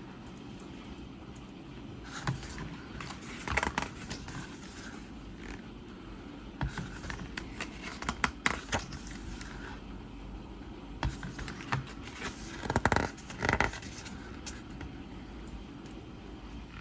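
Handling noise from unboxing a deluxe edition CD: scattered scrapes, light clicks and short rustles of the packaging, with a few louder bursts of handling.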